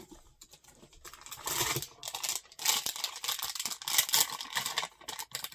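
Packaging being handled: rustling and crinkling with many small clicks and scrapes, starting about a second in and dying away near the end.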